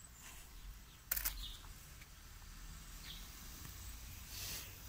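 Mostly quiet outdoor background with faint steady noise, a short sharp clack about a second in, and a soft brief rush near the end.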